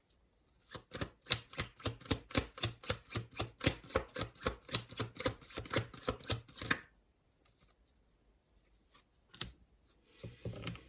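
Tarot cards being shuffled by hand: a rapid, even run of card slaps, about six or seven a second, for some six seconds, then it stops. A single tap comes near the end.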